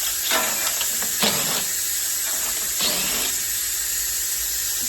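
Three short whirs of a power driver, each under half a second, as the carburetor fasteners on a walk-behind mower engine are loosened, over a steady hiss.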